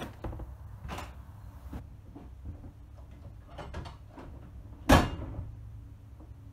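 Mechanical signal box lever frame being worked by hand: a few light clicks and knocks as the lever is gripped and its catch released, then a single loud metallic clank about five seconds in as the lever is thrown over in the frame, ringing briefly after.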